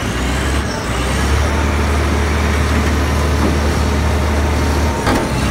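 Mobile crane's diesel engine running with a steady low rumble that cuts off about five seconds in.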